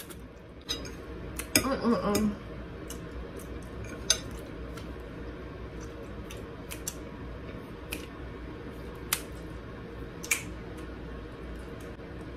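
Fork clinking and scraping against a plate of pasta while eating: a scattered handful of sharp clicks, over a steady low hum.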